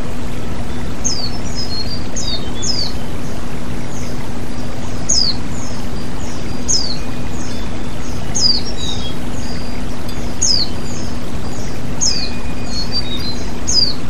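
Small waterfall pouring steadily over rocks into a stream. Over it, a songbird repeats a short, high, falling whistle about every second or two.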